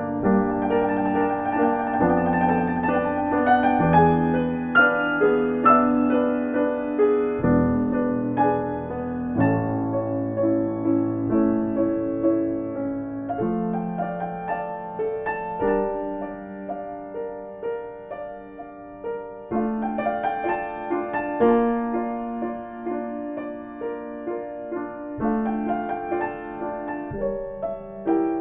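Piano playing a piece of held chords and melody notes, the harmony changing every second or two.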